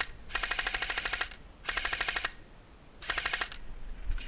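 Airsoft MG42 replica firing full-auto in three short bursts, each a rapid, even clatter of shots, the longest first.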